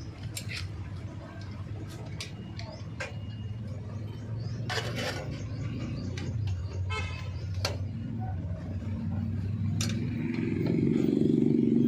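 Isuzu 8PE diesel engine running with a steady low drone that grows louder from about nine seconds in, with a few sharp clicks and knocks over it.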